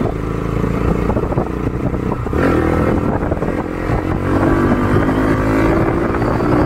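Bajaj Pulsar NS200's single-cylinder engine running through a custom aftermarket exhaust with a bassy note, revs climbing and getting louder from about halfway through.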